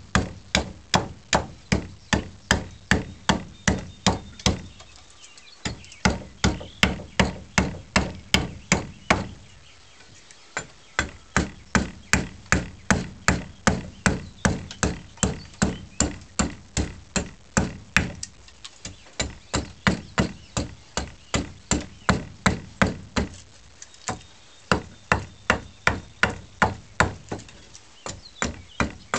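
Side axe hewing a wooden scythe-snath grip: a rapid, even run of sharp chops, about three a second, with brief pauses about five and ten seconds in.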